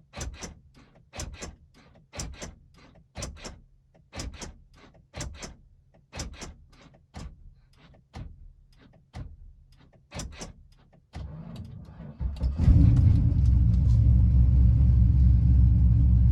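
Steady pairs of clicks about once a second. About eleven seconds in, the Chevy Silverado's engine turns over briefly, then catches and settles into a steady idle. It has started this time despite an intermittent no-crank electrical fault that the owner says could be the body control module.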